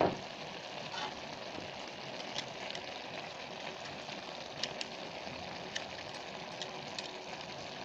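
Shredded young jackfruit and fried tofu simmering and sizzling in liquid in a metal wok, as a steady hiss. A metal spatula stirs the food and clicks against the pan several times.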